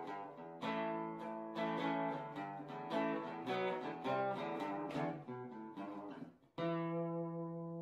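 Acoustic guitar music: a run of picked notes, then a final chord struck about two-thirds of the way through and left ringing.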